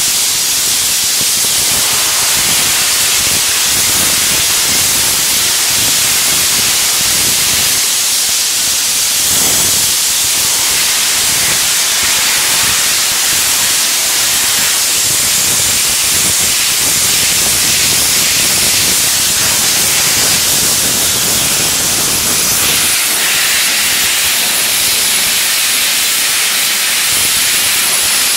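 Vapor blast gun spraying a water-and-abrasive slurry onto a metal table, a loud, steady hiss. Its tone shifts slightly a few seconds before the end.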